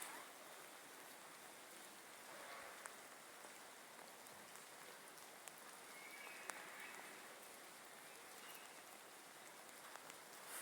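Rain falling, a faint steady hiss with scattered ticks of individual drops.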